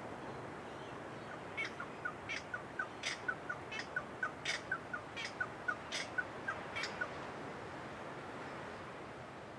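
A bird calling in a rapid, rhythmic run of sharp repeated notes, about three a second, starting a little over a second in and stopping about seven seconds in. A steady background rush runs beneath it throughout.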